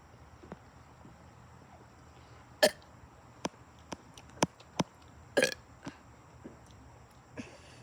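A person burping: a short, loud burp about two and a half seconds in and a second, slightly longer burp past the middle. A few small clicks fall between them.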